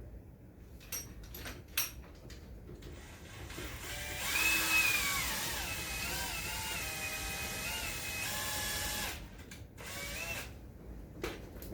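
Power drill driving a screw while a storm door is fitted: a few clicks, then about five seconds of motor whine that rises and falls in pitch as the speed changes, and a short second run near the end.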